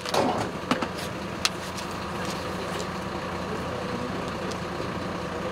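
An engine idling steadily, with a few sharp clicks and knocks in the first second and a half.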